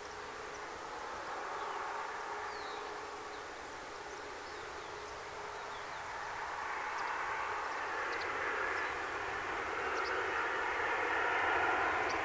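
Boeing 737's twin jet engines during the landing roll: a steady rushing jet noise that grows gradually louder as the airliner comes down the runway toward the listener.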